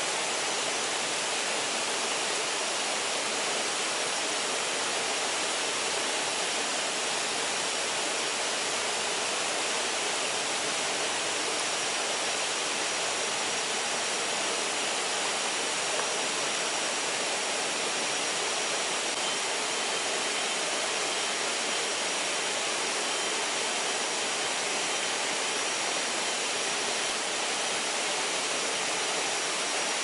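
Steady rushing of a small waterfall pouring into a river pool, an even, unbroken sound.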